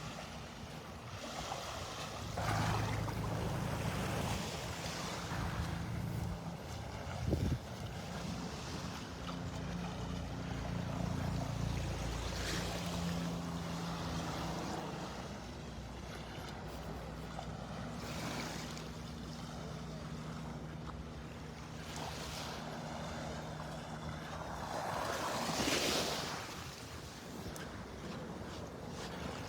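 Gentle surf washing onto the beach in slow swells, with wind on the microphone. Under it runs a low, steady engine hum.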